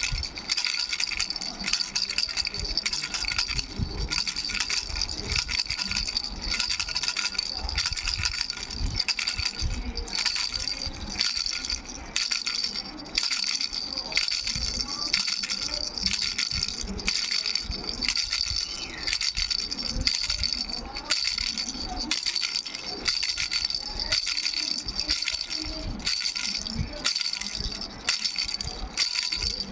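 Three-bell baby rattle shaken continuously, its small bells jingling with a steady bright ring over the clatter of the shakes.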